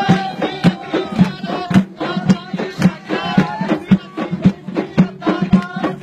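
Badakhshi folk music: large hand-struck frame drums beat a steady, quick rhythm while a voice sings over them.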